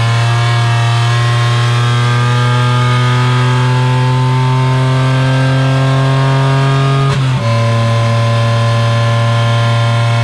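Renault Twingo Cup race car's engine heard from inside the cabin, accelerating with its pitch climbing slowly. About seven seconds in it cuts out briefly for an upshift, then carries on at lower revs.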